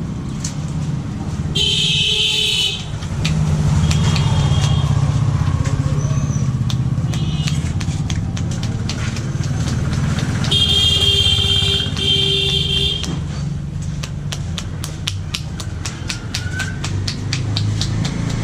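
Street traffic: a motor vehicle engine running steadily, with a vehicle horn honking about two seconds in and again, longer, around eleven seconds in. Rapid clicking of about five a second joins near the end.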